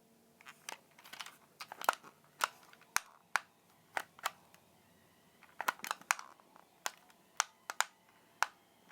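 Irregular sharp clicks of small plastic buttons and switches being pressed on a toy RC remote and car, several a second at times, while trying to pair the two.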